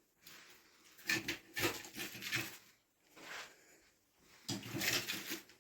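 Scraping and knocking of washing-machine parts being handled and pulled during disassembly, in two short clusters: one about a second in and one near the end.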